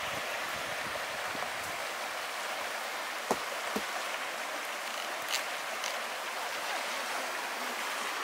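Steady rush of running water from a mountain creek, with a few brief clicks about three and five seconds in.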